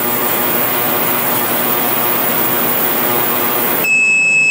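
Vevor 10-litre ultrasonic cleaner running a cleaning cycle: a loud, dense, steady buzzing hiss from the tank. It cuts off near the end and the unit gives a loud, steady beep, signalling that the timed cycle is done.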